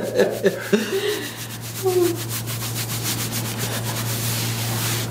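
A steady low mechanical hum with rapid, even ticking.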